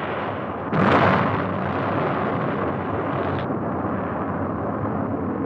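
Atlas rocket booster exploding: a sudden loud blast a little under a second in, over and then followed by a steady roar of the burning fuel.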